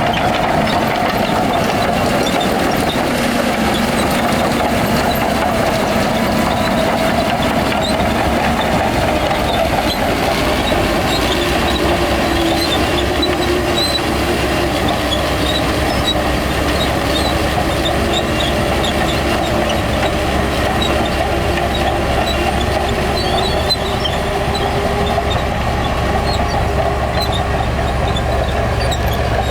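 Shantui bulldozer's heavy diesel engine working steadily, its pitch shifting a little as it pushes, with a deeper rumble building from about ten seconds in. Short high squeaks come and go throughout.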